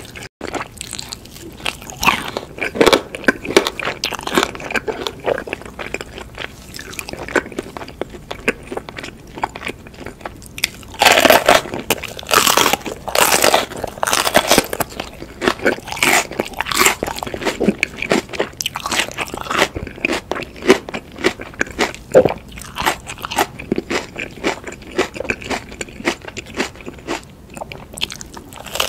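Close-miked eating: gnawing at a roast chicken drumstick, then crisp crunching bites and chewing of raw green chili peppers, the loudest crunches coming in a cluster about eleven seconds in.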